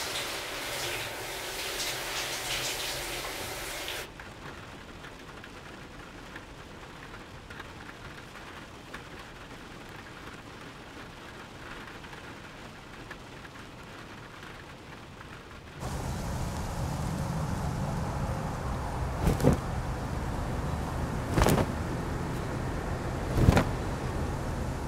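A bright hiss of running water for about four seconds, then a quiet stretch of faint rain patter. About sixteen seconds in, a louder wind-like rumble takes over, broken three times by a sharp flapping snap.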